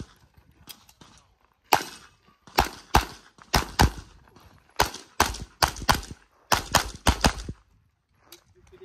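Competition pistol firing a rapid string of about a dozen shots, mostly in quick pairs, with short gaps between groups as the shooter moves between positions during an IPSC stage; the string stops near the end.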